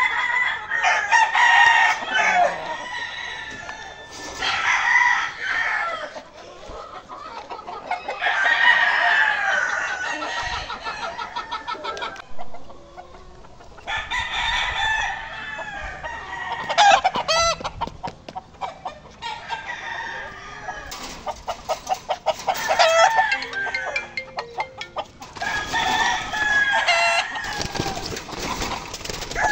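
Gamecock roosters crowing again and again, one call after another, with clucking between the crows.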